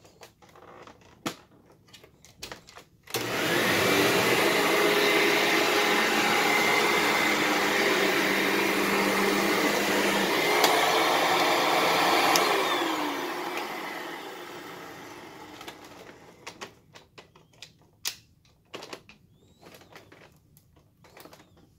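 Hoover WindTunnel self-propelled bagless upright vacuum started with a click about three seconds in. It runs steadily for about nine seconds, then is switched off and winds down with a falling whine over a few seconds. Handling clicks and knocks come before it starts and after it stops.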